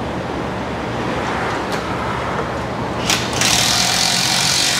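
Steady shop background hum, then about three seconds in a loud hiss of compressed air from a pneumatic hand tool held against the rear bumper, lasting about a second and a half before it cuts off.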